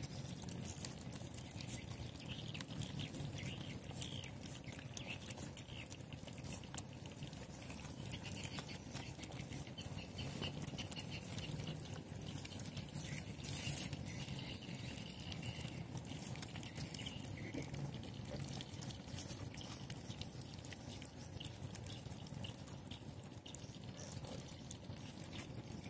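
Several puppies eating wet rice from a plastic tub: a continuous stream of wet smacking, chewing and lapping. There is one sharp click about a second in.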